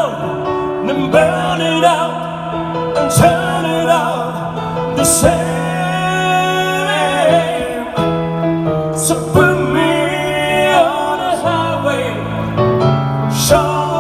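Live band playing a slow ballad: a wavering lead melody over held chords and a steady low bass note, with short sharp accents every couple of seconds.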